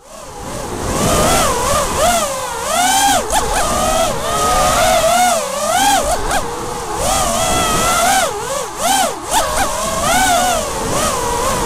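Electric motors and propellers of a five-inch FPV racing quadcopter (Emax 2205 2300KV brushless motors) whining, the pitch rising and falling again and again as the throttle is worked through the turns.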